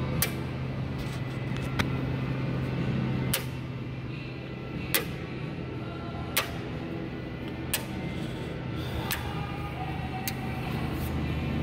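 Small magnet clicking onto the car's steel body panel again and again, a sharp click about every second and a half as it is moved along the fender, over a steady low hum.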